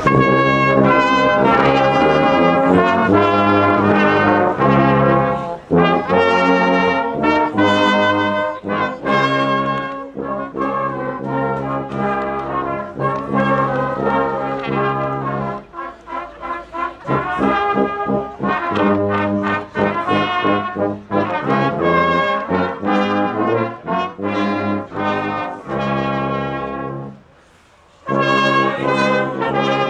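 Brass band playing a carol, full sustained chords with a moving melody on top. The playing breaks off briefly near the end, then starts again.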